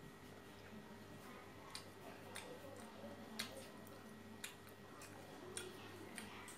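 Quiet eating sounds: scattered sharp clicks of a small utensil against grilled scallop shells, about six in a few seconds, over a steady low hum.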